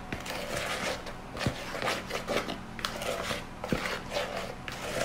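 Silicone spatula stirring dry powders in a stainless steel bowl: irregular scraping strokes several times a second, with a couple of sharp taps against the bowl.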